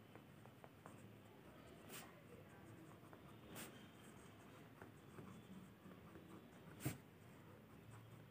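Pen writing on notebook paper: faint scratching strokes, with a few short clicks, the loudest about seven seconds in.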